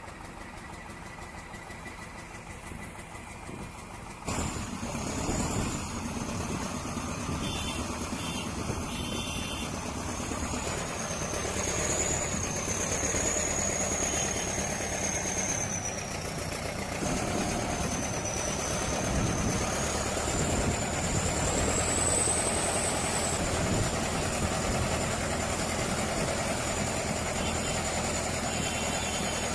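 A heavy vehicle's engine running, which becomes abruptly louder about four seconds in. A high whine wavers up and down in pitch over it.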